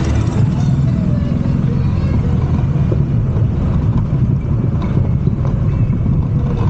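Golf cart being driven along a dirt road: a steady, rough low rumble of the moving cart and air rushing past.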